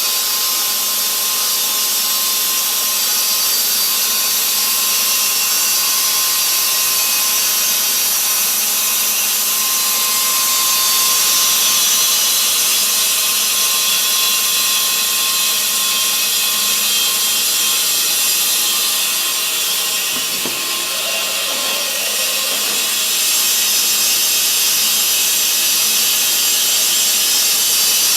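Portable horizontal band sawmill with an electric motor, its band blade cutting through wood: a steady high hiss with a faint constant whine. The sound dips briefly, with a single click, about twenty seconds in.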